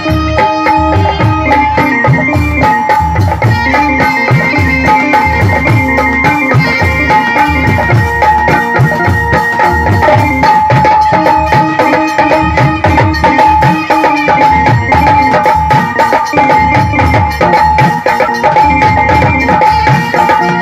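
Instrumental folk music: a steady, held melody line over fast, continuous hand-drum playing whose low strokes bend in pitch.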